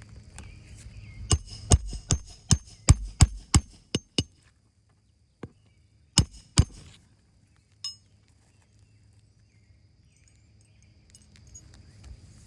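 A series of sharp knocks: about nine in quick succession over roughly three seconds, then two more a couple of seconds later and a faint click.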